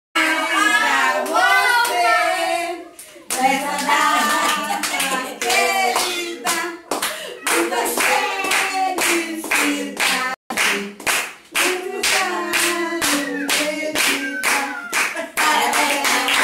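Voices singing a birthday song, with steady rhythmic hand-clapping that comes in about three seconds in, about two claps a second.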